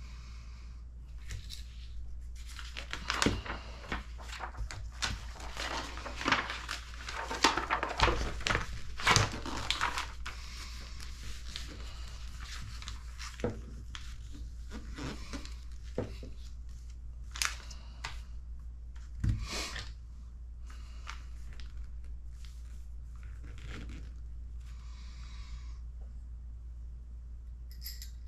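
Paper and plastic rustling and crinkling as model kit parts and the instruction sheet are handled, densest over the first ten seconds or so, then scattered light clicks and taps of small parts. A steady low hum sits underneath.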